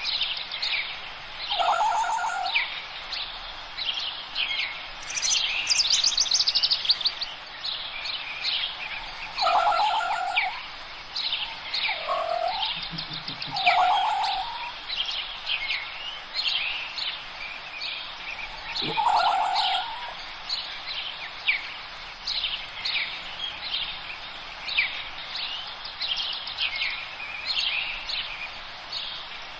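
Small birds chirping and twittering busily and without a break. A louder, lower call cuts in about five times, near two, ten, twelve, fourteen and nineteen seconds in.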